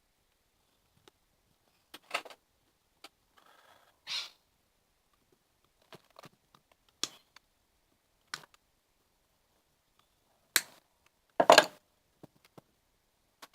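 Scattered clicks, taps and knocks of a pedestal fan's plastic and metal parts being handled and pulled apart by hand, with the loudest clunks about ten and a half and eleven and a half seconds in.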